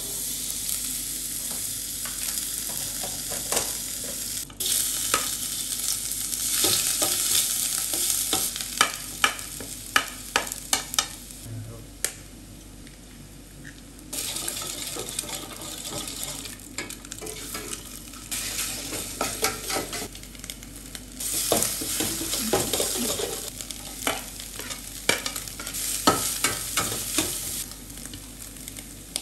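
Food sizzling in a hot pan as it is stir-fried, with frequent clinks and scrapes of a spatula against the pan. The sizzle dies down briefly about twelve seconds in, then picks up again.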